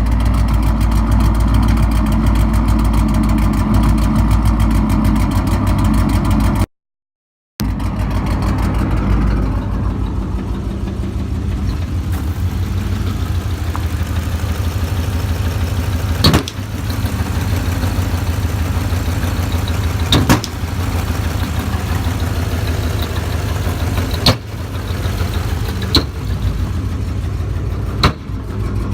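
Ford Mustang GT 4.6 L V8 idling roughly, with about five sharp, irregularly spaced pops in the second half. The owner blames the rough idle on spark plug trouble, after plugs broke during a plug change.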